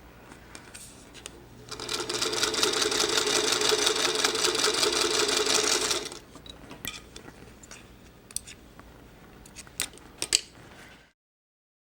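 Sewing machine stitching a seam at a steady speed for about four seconds, then stopping. A few light clicks follow, and the sound cuts to silence near the end.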